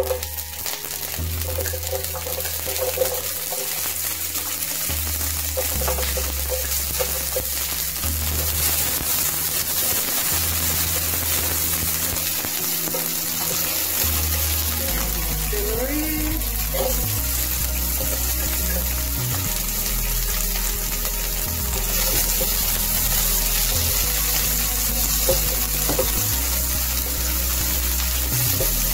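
Green beans and other vegetables sizzling in hot oil in an electric skillet, stirred with a spatula. The sizzle gets brighter about two-thirds of the way through. Background music with a steady bass line plays underneath.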